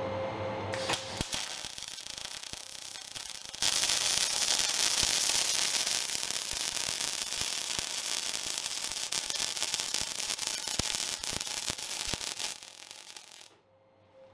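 MIG (gas-shielded wire) welding arc laying a low-amperage outside corner weld on steel plate: a dense crackling and sputtering. It begins with a few crackles about a second in, runs steadily and louder from a few seconds in, and cuts off sharply just before the end as the trigger is released.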